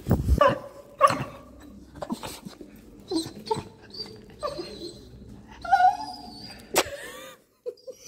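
A dog whining and giving short yips several times, reacting to a snake behind the glass of a terrarium.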